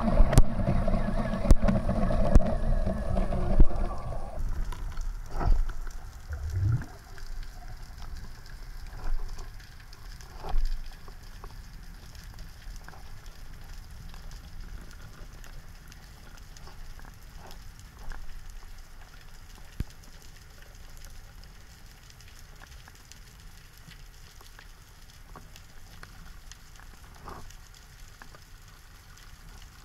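A boat engine's steady drone that cuts off about four seconds in. After it comes the underwater crackle of snapping shrimp on a rocky reef: faint continuous clicking and popping, with a few louder knocks and a low swooshing thump a few seconds after the drone stops.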